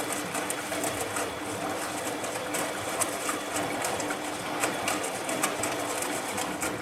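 Bosch MAXX 6 front-loading washing machine running mid-cycle: a steady motor hum with many small irregular clicks and knocks.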